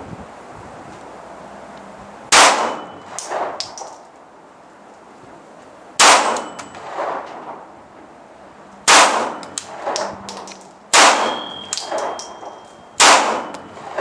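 Five shots from a Kahr P380 .380 ACP pistol, spaced about two to four seconds apart, each followed by a metallic clang with a short high ringing.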